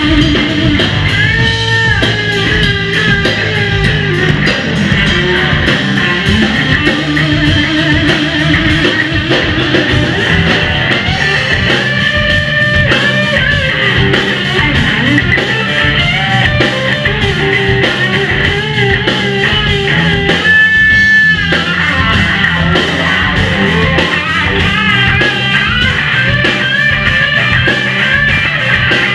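Rock band playing live at full volume: electric guitars over a drum kit.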